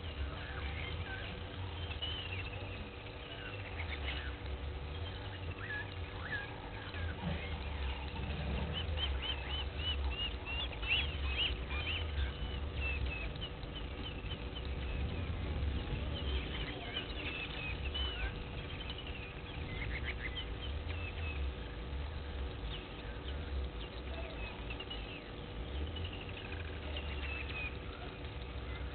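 Several wild birds chirping and whistling, with a quick run of repeated rising notes around ten seconds in, over a steady low rumble and a faint steady hum.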